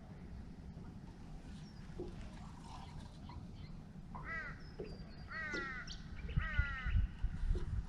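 A crow cawing in three bouts about a second apart, each bout a run of short, harsh, falling notes.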